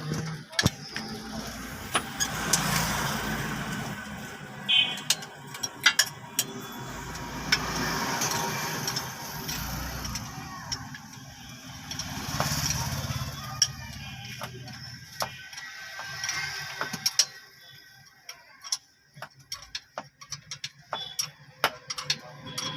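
Workshop sounds of hand tools at work on a truck engine: irregular sharp metallic clicks and knocks over the low hum of a vehicle running in the background, thinning out after about two thirds of the way through.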